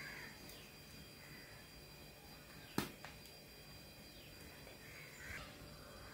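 Faint crows cawing now and then over a quiet background, with one sharp click about three seconds in.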